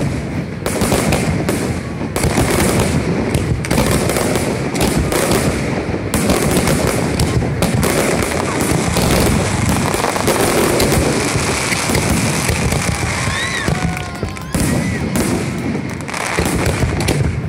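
Aerial fireworks going off in a rapid, continuous barrage of overlapping bangs and crackling.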